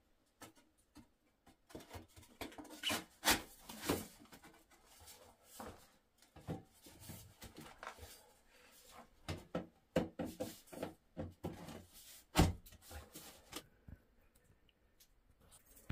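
Metal spiral-seam flue pipe being handled and fitted into place: irregular scraping, rubbing and knocking of the pipe, with a few sharper knocks, the hardest about twelve seconds in.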